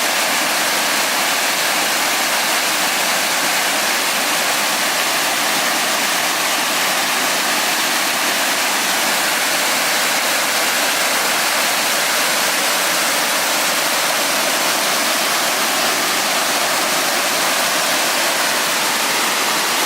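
Waterfall rushing steadily, an even unbroken roar of falling water with no change in level.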